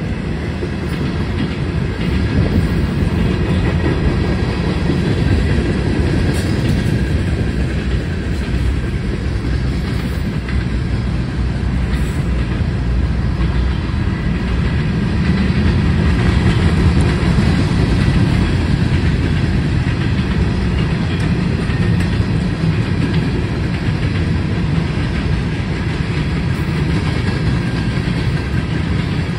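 A train's cars rolling past, a steady rumble with the clatter of wheels on the rails.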